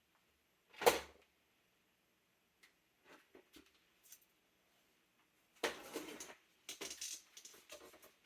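A single sharp thump about a second in, then after a quiet spell a few seconds of rustling and knocking: a PC case and its packaging being handled during unboxing.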